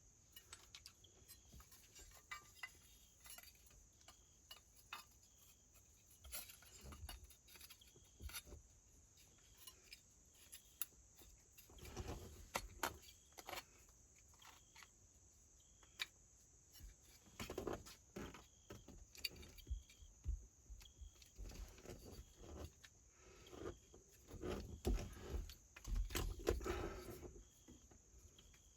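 Scattered light clicks, clinks and small knocks of metal parts and hand tools being handled, coming in short busy clusters with quiet gaps between.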